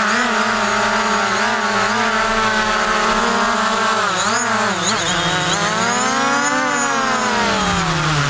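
DJI Mavic Pro quadcopter's propellers whining up close as it hovers to be caught by hand. The pitch wavers as the motors adjust, then rises and falls again in the second half.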